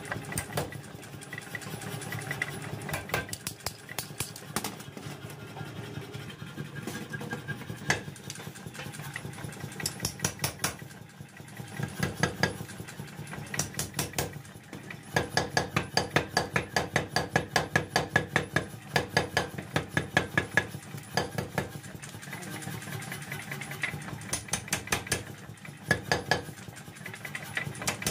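Mechanical power hammer running, its ram striking red-hot steel for a sickle blade in bursts of rapid blows, about four a second, over the steady hum of its motor.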